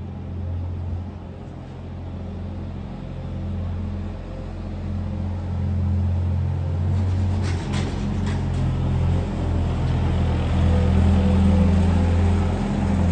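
Engine of a small waste-collection utility vehicle running with a steady low hum, growing louder toward the end. A few sharp clicks come about halfway through.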